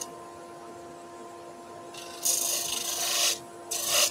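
Spinning sanding disc with its motor humming steadily. About two seconds in, a wooden workpiece is pressed against the disc: a rasping sanding hiss for about a second, then a shorter second pass near the end.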